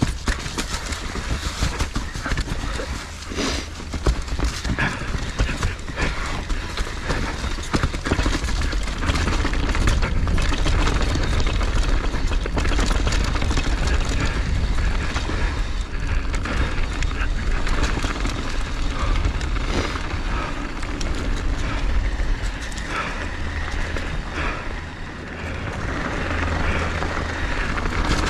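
Wind rushing over the microphone, with edges scraping and chattering on firm snow during a fast run down a ski trail.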